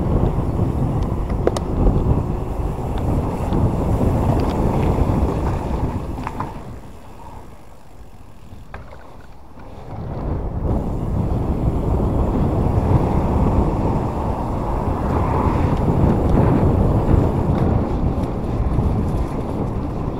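Wind buffeting the microphone of a camera on a moving e-bike, a heavy low rumble with a few faint clicks. It eases off for a few seconds around the middle, then comes back.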